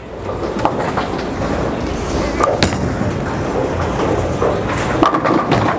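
Bowling alley noise: a steady low rumble of balls rolling down the lanes, with a few sharp knocks and clatters through it.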